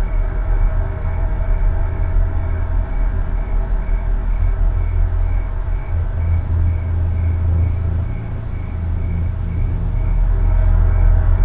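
Loud, steady low rumbling drone with held tones, a suspense-film sound bed, swelling slightly near the end. A faint high chirp repeats evenly about two or three times a second over it.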